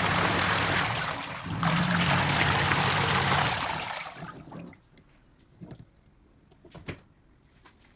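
Water rushing in an LG twin-tub washing machine, with a low motor hum under it; it dips briefly after about a second and a half and fades out about halfway through. A few faint clicks follow.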